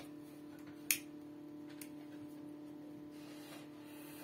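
Steady electrical hum of a homemade styrofoam egg incubator running while it heats up, its fan going inside, with one sharp click about a second in and a fainter one near two seconds.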